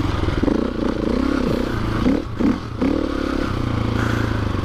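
Adventure motorcycle engine running under changing throttle while riding through sand, its note rising and falling, with a short dip in level a little past halfway.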